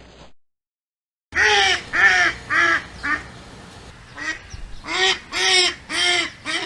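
An animal calling over and over: short, arched calls, four in quick succession, a fainter one, then four more.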